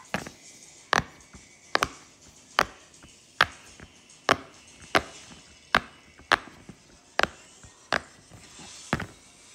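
Silicone pop-it fidget toy having its bubbles pressed in one after another: about a dozen sharp pops, a little more than one a second.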